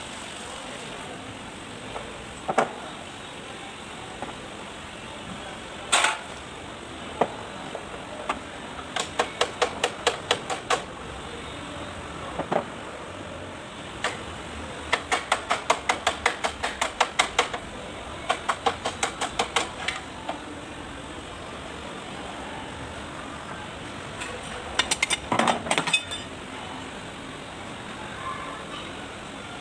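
Hand-tool work on a rotavator: runs of quick, evenly spaced clicks, about six a second, with single sharp knocks in between.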